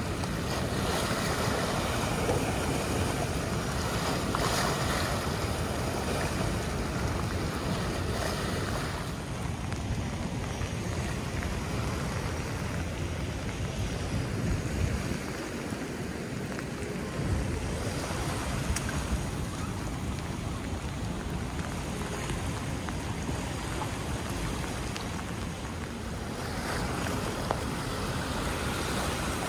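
Wind buffeting the microphone over the steady wash of harbor floodwater, with small waves lapping over and around a seawall at an extreme high tide.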